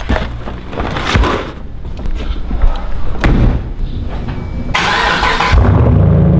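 A few thumps as a bag is dropped into the trunk of a Chevrolet Camaro and the trunk lid is shut. Near the end the car's engine is started from the key fob: a brief loud burst as it cranks and catches, then it settles into a steady low idle.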